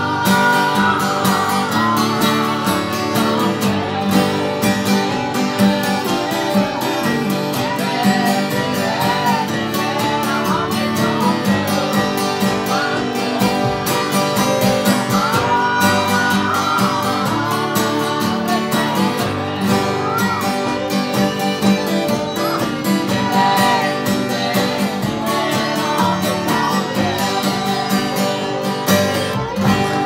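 Steel-string dreadnought acoustic guitar strummed in steady chords, played along with a recording of the song that carries singing and a melody line sliding in pitch.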